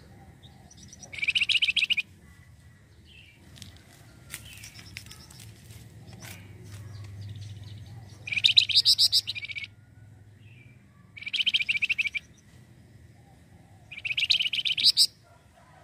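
Javan fulvetta (flamboyan, wergan jawa) calling in four bursts of rapid, rattling notes, each about a second long, a few seconds apart.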